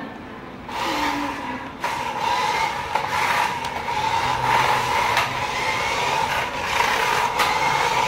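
Toy remote-control car driving over a concrete floor: its small electric motor and gears whine steadily, starting about a second in.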